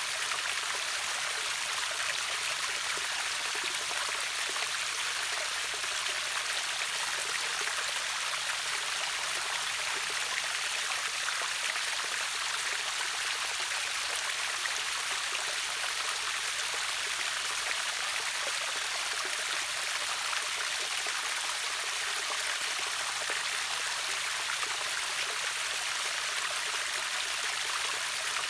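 River waterfall, water rushing steadily as an even, unbroken hiss with most of its weight in the high register.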